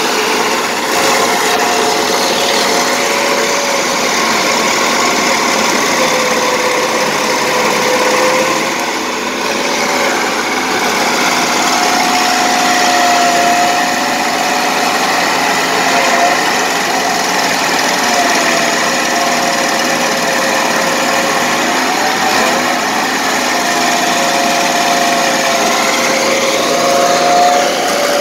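Stump grinder running hard, its spinning toothed cutter wheel grinding into a tree stump and spraying wood chips. The engine note wavers up and down as the wheel bites into the wood.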